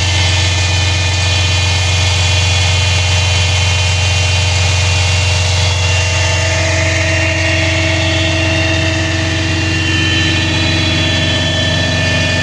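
The diesel engine of a 2021 Peterbilt 337 truck idling steadily, heard from underneath the truck beside the exhaust.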